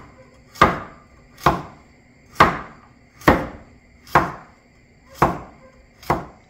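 A cleaver chopping a carrot into rounds on a wooden cutting board: seven sharp, evenly spaced chops, a little under one a second.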